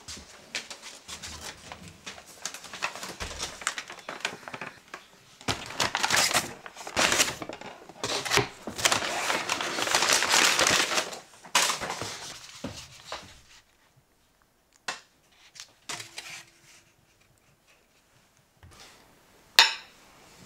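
Paper takeaway bag rustling and crinkling as a food delivery is unpacked, with clicks and clunks of containers, loudest in the middle. Then a quieter stretch of a few light knocks and one sharp clack near the end.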